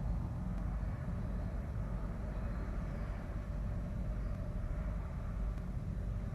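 Steady low outdoor rumble with a hiss, picked up by the nest-box camera microphone, with no distinct calls or knocks.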